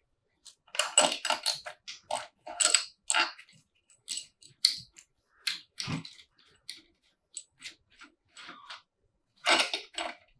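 Hand tools and metal engine parts clinking and clattering irregularly during cylinder-head removal on a BMW M50B25 engine, with a duller knock about six seconds in.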